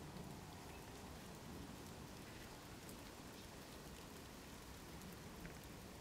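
Rain falling on pond water: a faint, even hiss with scattered small drop ticks.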